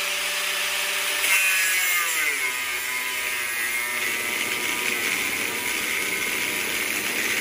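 Corded angle grinder cutting into a seized steel bearing on a chaff cutter's shaft, with a harsh grinding hiss over the motor whine. About a second in, the whine drops in pitch as the disc bites and the motor slows under load, binding because the disc is being twisted and bent in the cut.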